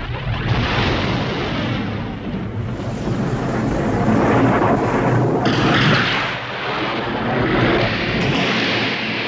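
Trailer sound effects: a loud, continuous rumbling roar with deep booms, growing louder about three seconds in and easing slightly near the end.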